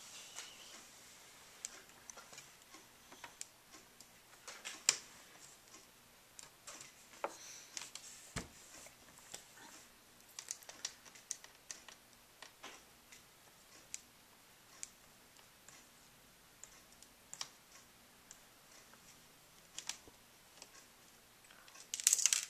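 Small sharp clicks and ticks of a small Phillips screwdriver turning out the screws that hold a Dell Inspiron N4010's LCD panel, with light handling of the plastic lid. A quick cluster of sharper clicks comes near the end.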